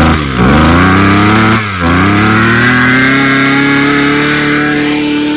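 Small two-stroke engine blipped hard twice, falling back between the blips, then held wide open so its speed climbs gradually and settles at a high, steady pitch.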